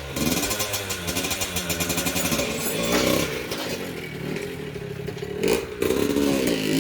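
A motorcycle engine running, its pitch wandering up and down with the revs, over a clattering rattle.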